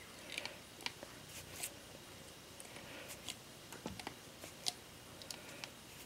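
Faint, scattered clicks and light scraping of steel pliers gripping and twisting two 12-gauge copper wires together into a pigtail splice.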